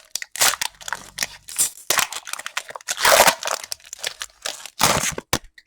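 Foil Pokémon booster pack wrapper being torn open and crinkled by hand: a run of irregular crackling rips and rustles, loudest about three seconds in and again near the end.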